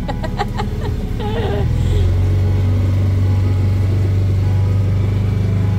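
Motorboat engine throttling up over the first two seconds, then running steadily at speed with a deep, even drone.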